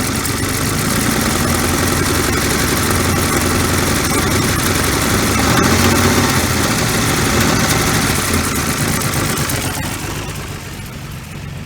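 1966 Dodge Dart's 225 slant-six engine running and being revved, louder around the middle, then dropping back toward idle near the end. The revving is a charging test: the voltage stays steady, so the alternator isn't charging.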